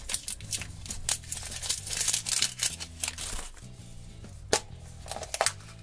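Thin plastic wrapper crinkling and tearing as it is peeled off a plastic surprise egg, with a single sharp click about four and a half seconds in. Soft background music with low notes runs underneath.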